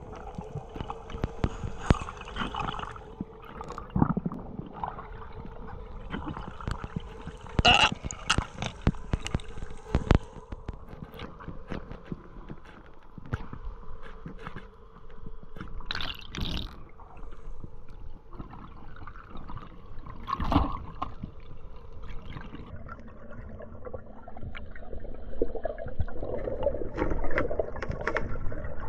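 Underwater sound picked up through a camera housing: gurgling, bubbling water with scattered clicks and knocks and a faint steady hum underneath. The bubbling grows louder and denser near the end.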